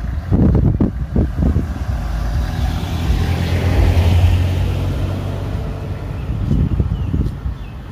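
A minivan drives past close by: its engine and tyre noise swell to a peak about four seconds in and then fade away. Low bumps of wind noise hit the microphone in the first second and a half.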